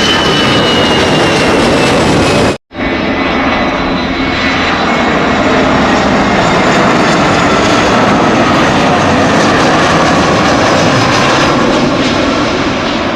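A loud, steady engine-like roar with a faint whine that slowly glides in pitch, broken by a sudden brief dropout about two and a half seconds in.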